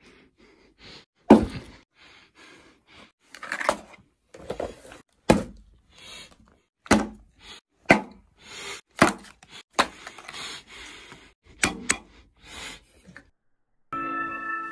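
Takeout delivery packaging being unpacked onto a wooden table: a plastic bag rustling, with a series of separate knocks and thuds as cardboard boxes and a soda can are set down. Music starts just before the end.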